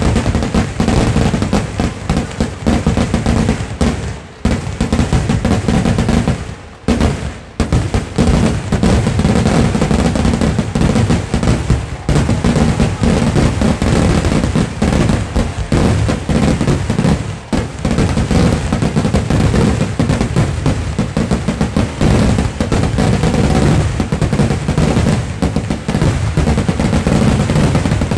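Kerala temple fireworks (vedikettu) in a loud, dense barrage: rapid explosions run together into a near-continuous rattle, with brief lulls about four and seven seconds in.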